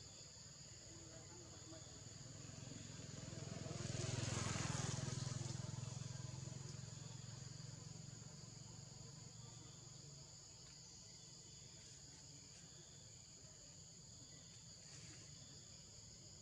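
Steady high-pitched insect chorus, crickets trilling without a break. A broad, rumbling noise swells to a peak about four seconds in and fades out over the next few seconds, like something passing by.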